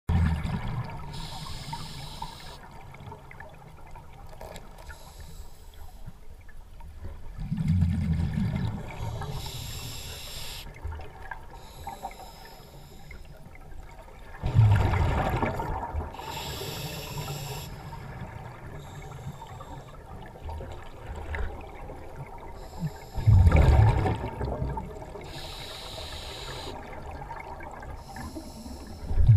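Scuba diver breathing through a regulator underwater. Each slow breath is a hissing inhale, followed by a louder, low bubbling rush as the exhaled air leaves the exhaust valve. There are about four breaths.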